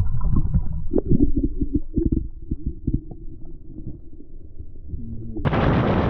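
Muffled thumps and knocks with only the low sounds coming through, over a faint steady hum. About five seconds in it switches suddenly to loud wind buffeting the microphone.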